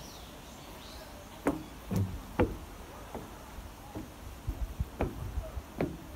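Footsteps climbing wooden outdoor steps: a run of dull knocks at an uneven pace, about two a second, starting about a second and a half in.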